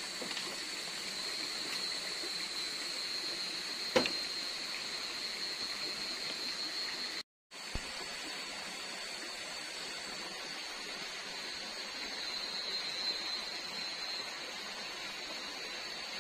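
Night forest ambience: a steady high-pitched insect chorus over a constant rushing of water. There is a single sharp knock about four seconds in, and the sound drops out for a moment a little after seven seconds.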